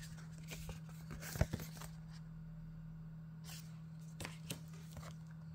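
Stiff printed art cards being handled and shuffled by hand: brief papery slides and light taps, the loudest a sharp tap about a second and a half in, and a few more near the end.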